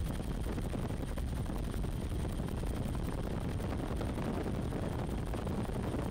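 Helicopter rotor and engine noise heard from inside the cabin: a steady low drone with a rapid, continuous pulsing.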